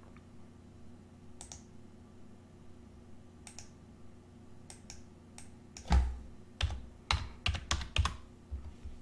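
Computer keyboard keystrokes: a quick run of about eight keys from about six seconds in, the first the loudest. A few faint clicks come before it, over a low steady hum.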